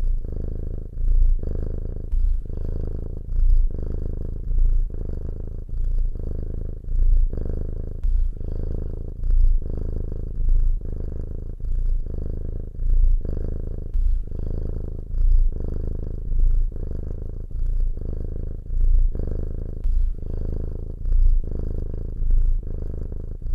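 Domestic cat purring: a low, continuous rumble that swells and eases with each breath, about once a second.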